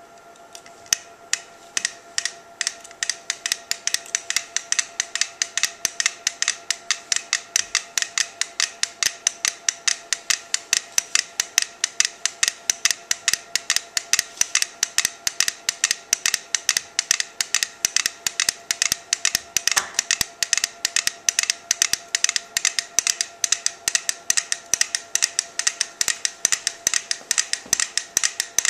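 Four small mechanical metronomes ticking, a coupled set standing on a board resting on cans. The ticks start sparse as the metronomes are set going one after another, then become a dense, overlapping clatter of sharp ticks.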